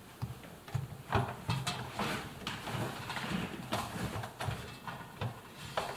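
Irregular clicks, taps and rustling of hands working on a washing machine's rubber door boot and its clamp ring.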